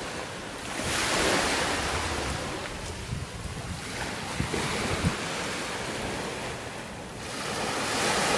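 Small sea waves breaking and washing up a sandy beach, two surges of surf about a second in and near the end, with wind on the microphone.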